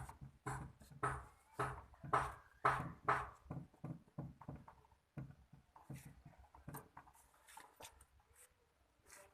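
A rapid series of short animal calls, about two a second, loud for the first three seconds or so and then fading to fainter, sparser calls.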